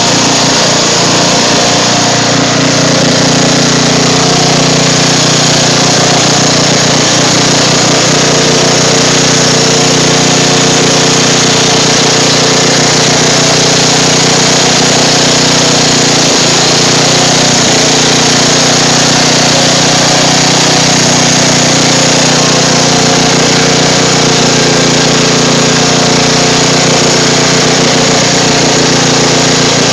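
Craftsman riding lawn mower's engine running steadily and loudly as the mower drives through shallow swamp water.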